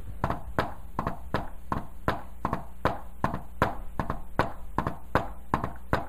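A hand tapping on a whiteboard in a quick, repeating three-beat gallop, about three to four taps a second, imitating an S4 heart sound: atrial beat, then S1, then S2, the "Tennessee" rhythm. An S4 is the sign of an atrium contracting against a stiff, usually hypertrophied, left ventricle.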